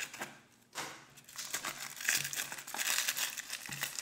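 Packaging wrapper crinkling and rustling as a small wrapped stationery package is handled and opened. There are two brief rustles at first, then steady crackling from a little over a second in.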